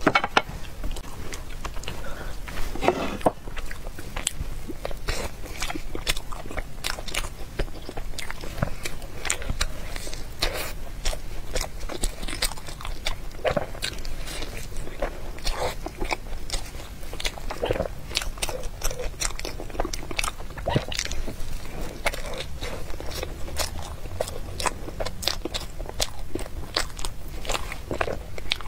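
Close-miked eating of a pork-floss-coated, cream-filled bun: biting and chewing, with a steady stream of small crisp clicks and crunches and moist mouth sounds.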